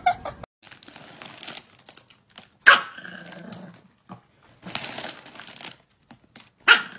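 Foil chip bag crinkling in bursts as a hand reaches in, and a small dog giving a couple of sharp barks, one about three seconds in and one near the end.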